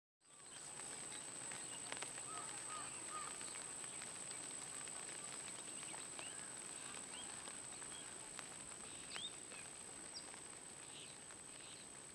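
Faint rural outdoor ambience that fades in at the start: scattered short bird chirps over a soft hiss, with a steady high-pitched whine throughout.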